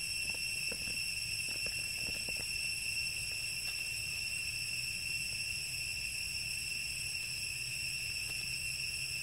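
Steady high-pitched drone of an insect chorus in the forest, one unbroken shrill tone with higher overtones. Faint rustling and small ticks in the first couple of seconds.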